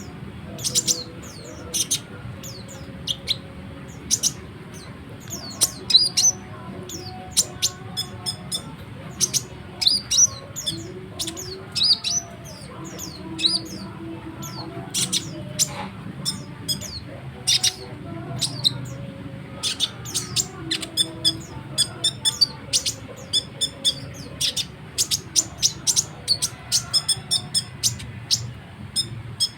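A kolibri ninja sunbird singing a fast, chattering song of short, high, sharp chirps, packed densely and almost without pause, the rapid 'nrecet' style of a bird in full song.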